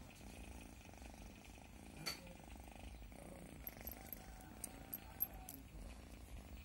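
Domestic cat purring steadily while having its chin scratched, with a faint click about two seconds in and a few light high ticks through the middle.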